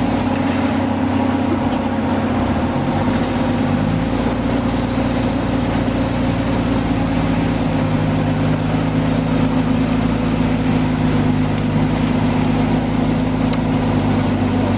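Toyota Land Cruiser 4x4's engine running at low revs as it crawls over rocks, settling to a steady note after a shift in pitch in the first few seconds.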